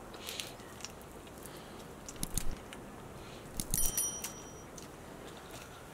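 Metal fork picking at a salt-baked pike: scattered clicks and scrapes of the tines against the fish, with a short metallic ring about four seconds in.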